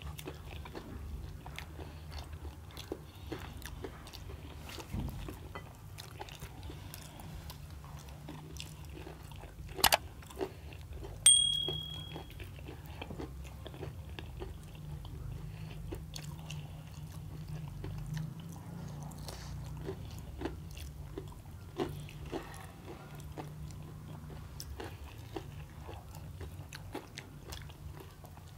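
Two people eating deep-fried samosas: crunching bites of crisp pastry and wet chewing, with many small irregular mouth clicks. About eleven seconds in there is a sharp clink that rings briefly, the loudest sound.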